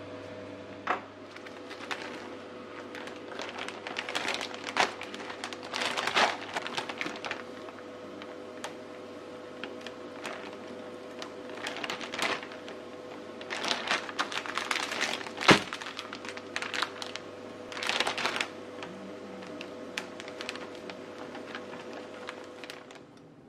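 Plastic zipper bag crinkling and a metal spoon clicking and scraping as salt is spooned onto a raw steak inside the bag, in irregular bursts over a steady low hum, with one sharp knock about two-thirds of the way through.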